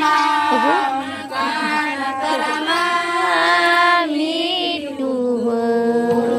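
Voices singing a Karam ritual song in long, drawn-out notes that glide from pitch to pitch.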